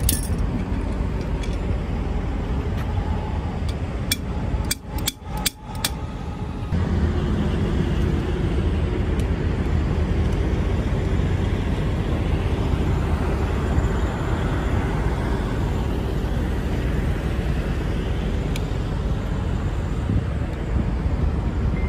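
Steady low rumble of outdoor background noise, with a few sharp clicks and brief dropouts around five seconds in.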